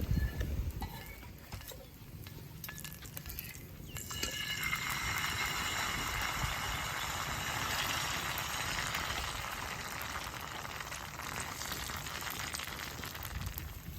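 Mullu murungai adai frying in sesame oil, a dense steady sizzle that starts suddenly about four seconds in. Before it there are only a few light clicks.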